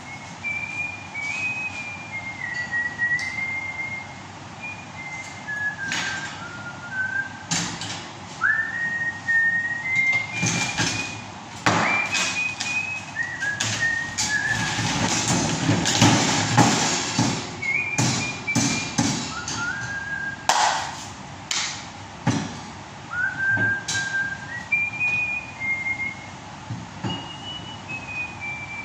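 A person whistling a tune in short, clear, gliding notes. Metal clinks and knocks sound over it as a steel-wire grate is handled, with a louder scraping rattle around the middle as the grate is tilted and shifted on the bench.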